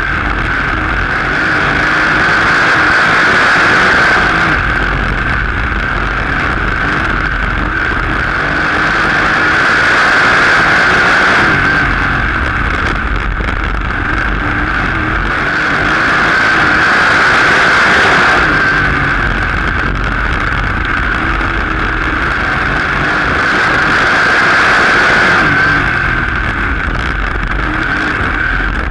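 Sprint car engine heard onboard at racing speed on a short dirt oval. It runs hard and swells, then eases off and rises again in a regular cycle about every seven seconds, once per lap.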